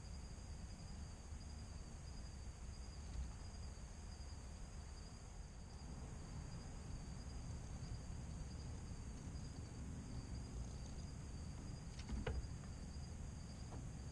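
A steady, high-pitched insect chorus with a low outdoor rumble beneath it. About twelve seconds in there is a single sharp knock with a short ringing tail.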